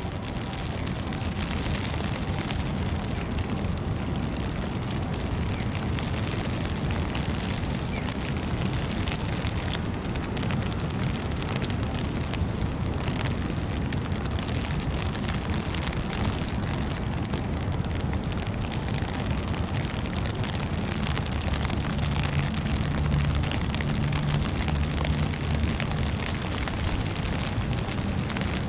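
Steady outdoor street ambience: a continuous low rumble under an even hiss, with no distinct events.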